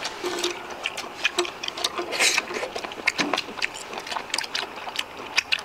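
People chewing raw octopus close to the microphone: wet mouth clicks and smacks that come at irregular intervals.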